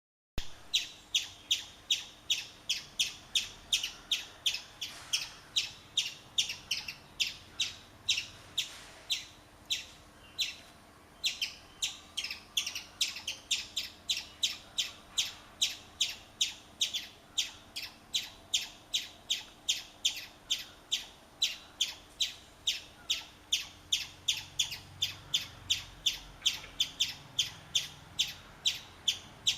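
Chipmunk chipping: a long run of short, sharp, high chips at about two to three a second, with a brief pause about ten seconds in. This is the repeated chip call chipmunks give in alarm.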